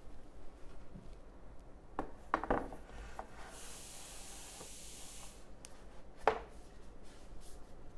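A framed whiteboard being hung and settled onto its wall clips: light knocks and clicks of the frame about two seconds in and again near six seconds, with a brief rubbing scrape of the frame against the wall in between.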